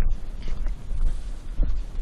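Wind buffeting the camera's microphone, a heavy irregular rumble, with a couple of faint knocks about half a second and a second and a half in.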